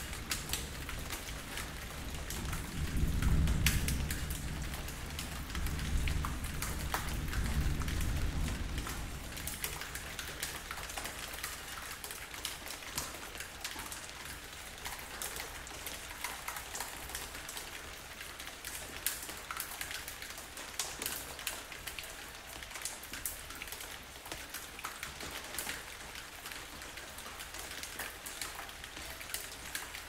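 Steady rain falling, with many separate drop hits ticking through it. A low rumble swells about three seconds in and dies away by about ten seconds in.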